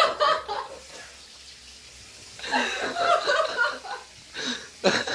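People's voices without words, mostly laughing and exclaiming, in bursts with short pauses between them, in a small room.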